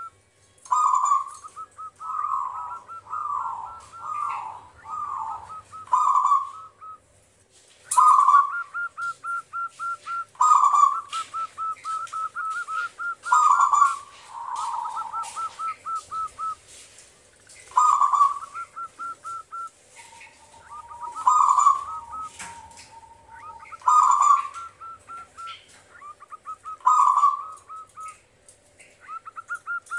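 Zebra dove (perkutut) cooing: its song phrase repeated over and over, each a loud first coo followed by a quick run of short, even notes.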